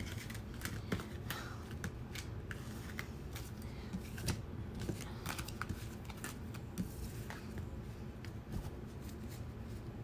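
Oracle cards being picked up off a board and handled in the hands: a run of light, irregular clicks and taps of card on card.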